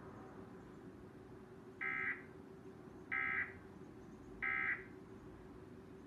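Emergency Alert System end-of-message signal played through a TV's speakers: three short, identical bursts of warbling digital data tones, each about a third of a second long and about 1.3 s apart, marking the end of the alert, over a faint steady hum.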